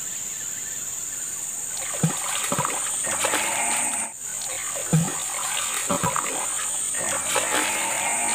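Water plops and splashes at the surface as a floating frog lure is twitched and a snakehead strikes and thrashes at it: a handful of sharp splashes about a second apart, over a steady high-pitched background drone.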